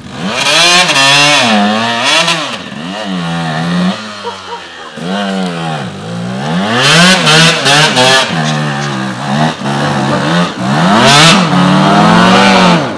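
Enduro motorcycle engine revved hard in repeated surges, its pitch climbing and dropping every second or so, as the bike struggles for grip up a steep muddy hill climb.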